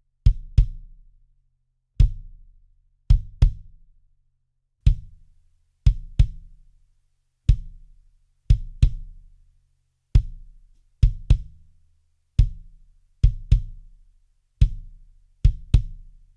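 Soloed kick drum from its outside mic, playing a repeating pattern of single hits and quick doubles, each a low boom with a short decay and a sharp click on the attack. It plays first dry, then through a 76 (1176-style) compressor, which makes the kick a bit tighter and brighter.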